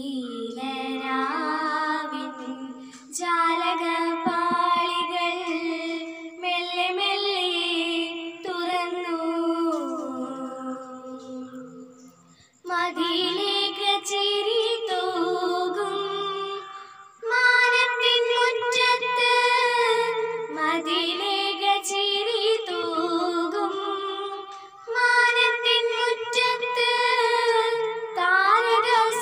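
A girl singing solo without accompaniment, in long held phrases with short pauses for breath between them.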